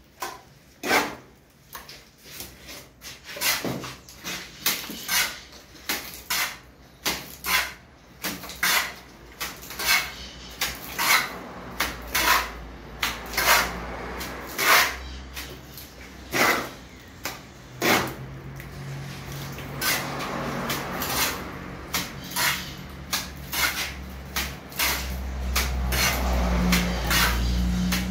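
Wet cement mortar being scooped from a tub with a mason's steel trowel and flung onto a bare brick wall as a chapisco spatter coat: a long irregular run of sharp slaps and scrapes, about one or two a second. A low steady hum comes in about halfway and grows louder near the end.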